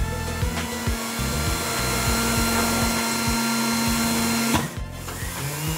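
Tool post grinder's wheel grinding the face of a steel lathe magnetic chuck: a steady hiss with a held whine, resurfacing the marred chuck face. It cuts off sharply about a second before the end.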